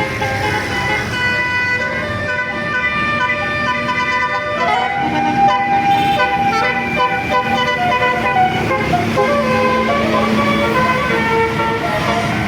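Basuri telolet bus horn playing a tune: several horn tones sounding together and stepping from note to note, with one note sliding up about four and a half seconds in and held briefly.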